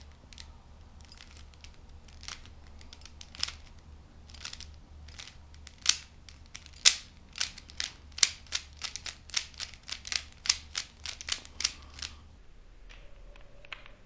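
Layers of a 3x3x3 Rubik's cube being turned in a repeated fingertrick sequence (L' U L U'): sharp plastic clicks, a few scattered at first, then a quick run of about four a second from about halfway, which stops shortly before the end.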